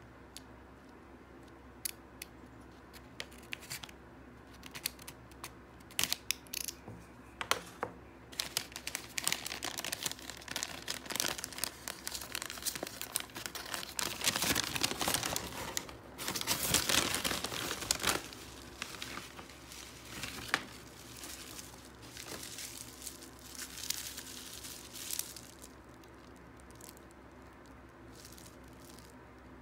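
Brown kraft paper bag crinkling and rustling as hands unroll and open it: scattered sharp crackles at first, then dense and loudest around the middle, dying away near the end.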